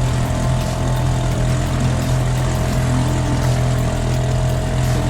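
Boat motor running at a steady low trolling speed, a constant droning hum.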